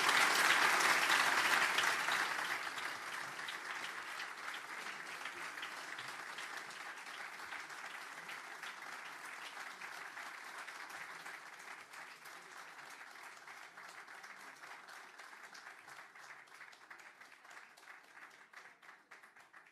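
Audience applauding, loudest at the start and slowly fading over the next twenty seconds, then cut off suddenly at the end.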